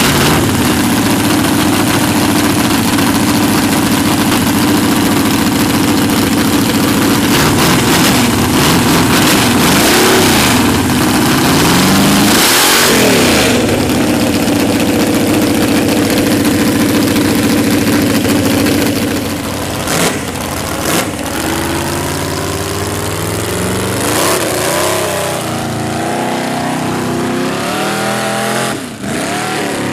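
Mega mud buggy's engine running loudly at a steady idle, blipped up and down twice near the middle. In the last third it pulls away through deep mud, the engine pitch repeatedly rising and falling under load.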